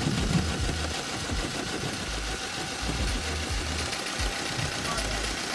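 Saw blade mounted as the rear wheel of a Sur-Ron electric dirt bike, driven by the bike's motor and chain, grinding slowly through a tree trunk: a steady rough mechanical whir with uneven low pulses.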